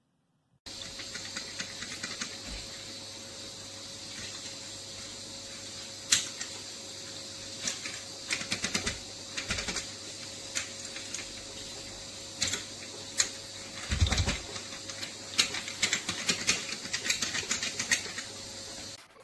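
Irregular clicks and light taps, sparse at first and busier in the second half, over a steady hiss with a faint hum.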